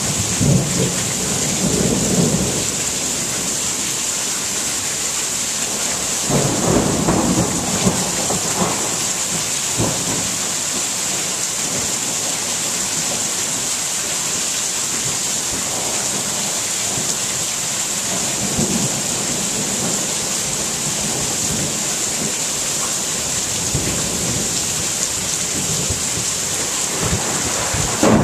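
Steady rain hissing, with low rolls of thunder rumbling over it. The strongest roll comes about six to nine seconds in, and fainter ones follow later.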